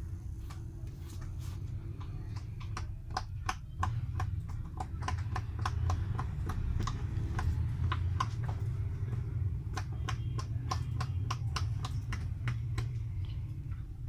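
Bubbles of a silicone pop-it fidget toy being pressed one after another by a finger, each giving a short sharp pop, about two or three a second, over a steady low hum.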